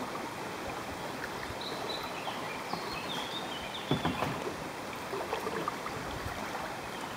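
Steady rush of flowing river water, with a sharp knock about four seconds in from the kayak and paddles being handled.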